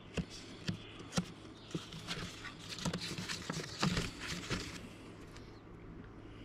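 Light handling noises: scattered rustling, scraping and small clicks as objects in the opened safe are moved about, busier in the first few seconds and thinning out near the end.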